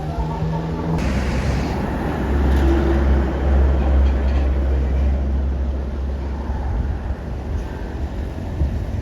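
The last note of a bus's multi-tone telolet horn breaks off about a second in. The bus then passes close, with a deep engine rumble and road noise that swell through the middle and ease off toward the end.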